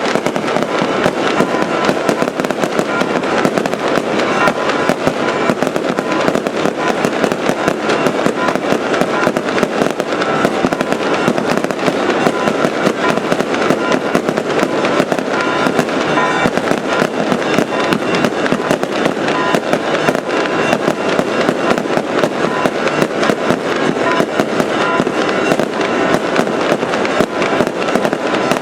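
An aerial fireworks display going off in a dense, unbroken barrage of rapid crackles and bangs at a steady, loud level.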